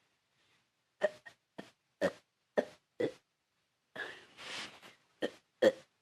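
A person forcing out a rapid series of short burps, about eight in all, with a breathy stretch between the two groups.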